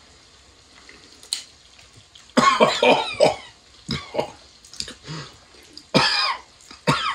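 A man coughing in a run of harsh fits, starting about two seconds in, as if a spoonful of stew went down wrong: a put-on cough, played as a joke.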